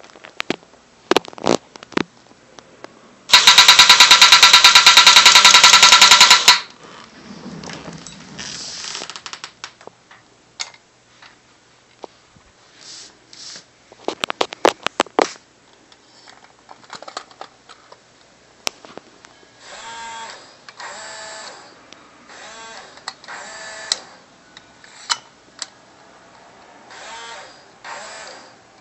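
Battery-driven mechanism of a 1960s Rosko Pom Pom remote-controlled tin toy tank: a loud, fast mechanical rattle lasting about three seconds, a few seconds in. Scattered clicks and softer whirring follow.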